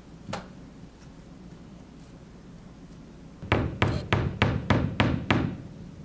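Claw hammer tapping a nail into an exhibit wall: one light knock just after the start, then seven quick even strikes, about three a second, beginning about three and a half seconds in.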